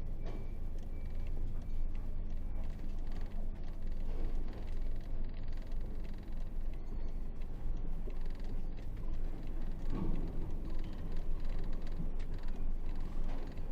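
Diesel engine of an Isuzu 8x4 heavy truck running steadily, a low, even drone.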